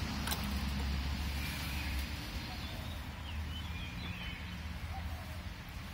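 Low rumble of wind on the microphone, heavier for the first two seconds, with a few faint high bird chirps about three seconds in.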